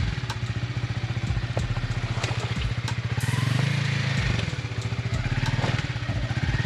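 Off-road motorcycle engine running at low revs, swelling twice as the throttle is opened lightly, with scattered sharp clicks and knocks.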